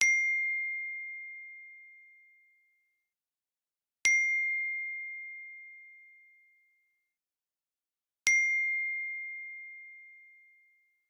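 A single bell-like ding struck three times, about four seconds apart. Each strike is one clear high ringing tone that dies away smoothly over two to three seconds.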